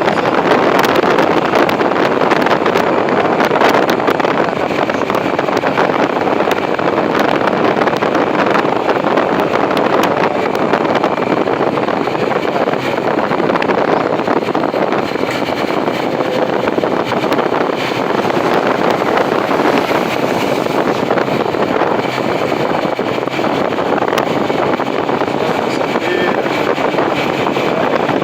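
Heavy wind noise on the microphone of a camera on a moving motorcycle: a loud, steady rushing that covers the other sounds of the ride.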